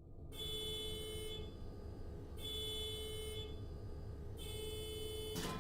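Faint locomotive horn sounding three blasts, each about a second long and evenly spaced about two seconds apart.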